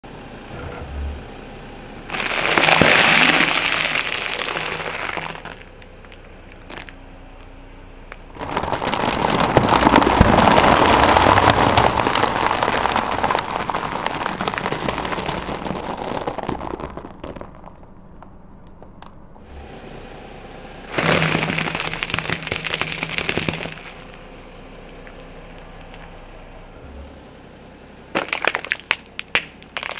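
Objects cracking and crunching as a car's tyre crushes them, in several separate bursts: a long one of several seconds in the middle, and a quick run of sharp cracks near the end.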